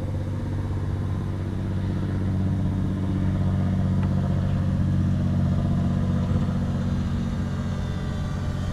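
Triumph Tiger 800 XCx's three-cylinder engine idling steadily, growing a little louder in the middle and easing off near the end.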